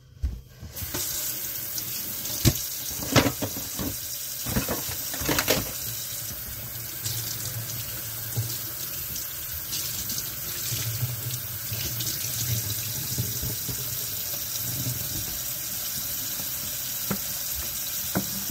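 Kitchen tap running into a sink, starting about a second in, with a few sharp knocks and clatters in the first few seconds.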